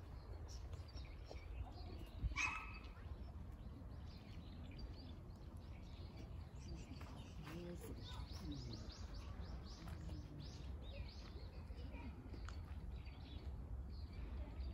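Small birds chirping again and again over a low steady rumble, with one louder call about two seconds in.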